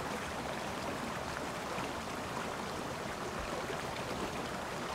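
Small mountain stream rushing steadily over a low cascade.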